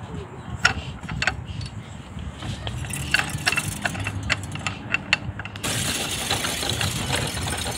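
Hand-spun playground spinner wheel panel clicking and rattling irregularly as it turns. About five and a half seconds in it gives way to a denser, hissier rattling as a playground gear panel is cranked.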